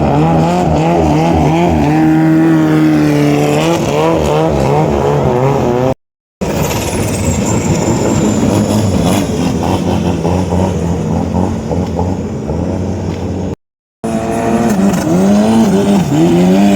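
Racing longtail boat engines running hard, their pitch rising and falling as they rev. The sound breaks off twice into brief silence where one clip cuts to the next.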